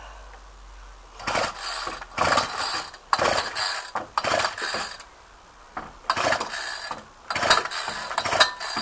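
Recoil pull-starter of an older Ryobi two-stroke string trimmer being yanked several times in quick succession, then again after a short pause; the engine does not catch. The starter does not sound too healthy.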